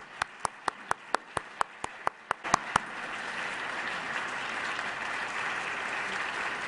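Audience applause in a lecture hall. For the first few seconds, one nearby pair of hands claps sharply at about four claps a second. After that, the hall's applause fills in as a steady, dense clatter.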